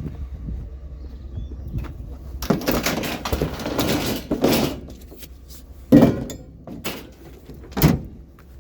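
Metal scrap being handled and loaded, clattering and rattling for a couple of seconds, then two sharp knocks about two seconds apart.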